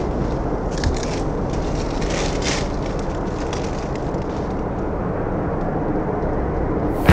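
Steady low rumble of distant road traffic, with a few faint swells of tyre hiss as vehicles pass.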